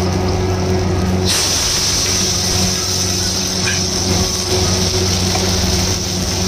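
Raw chicken pieces hitting hot oil and garlic in a wok: a sudden loud sizzle starts about a second in and keeps going as the meat is stirred with a metal ladle. A steady low hum underlies it.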